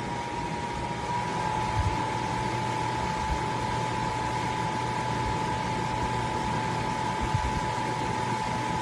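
Shinco 12,000 BTU portable air conditioner running: a steady rush of fan noise with an even high whine and a low hum, and a couple of soft knocks.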